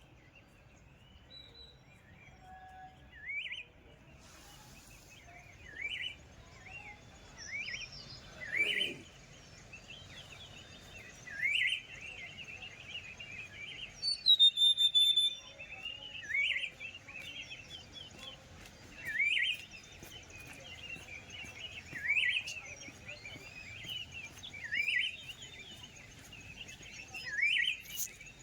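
Birds calling outdoors in the morning. One bird repeats a short call every two to three seconds while others chirp more softly behind it. A louder, higher-pitched call comes about fourteen seconds in.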